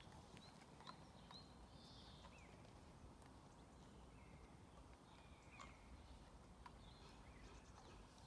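Near silence: faint outdoor background hum with a few brief, high bird chirps scattered through, and a couple of faint clicks.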